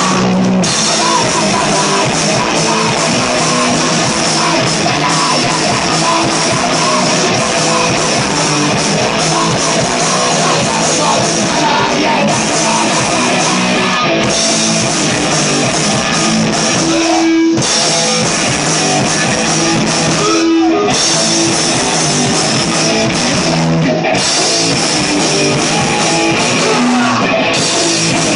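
Punk rock band playing live and loud: electric guitar, Ludwig drum kit and a singer's vocals.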